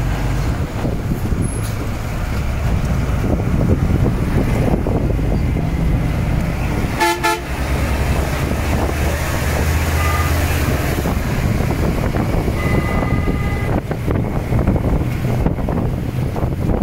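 Steady low rumble of bus engines and road traffic, cut by vehicle horns: a short blaring blast about seven seconds in, a brief beep around ten seconds, and a high horn held for about a second around thirteen seconds.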